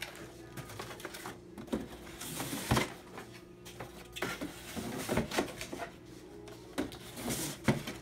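Cardboard display pieces being handled and fitted into cardboard trays: irregular knocks, taps and scraping rustles, over a steady low hum.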